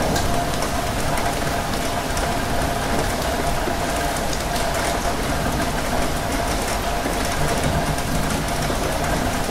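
Steady rain on a window mixed with the continuous running noise of a rail carriage interior, with a constant hum.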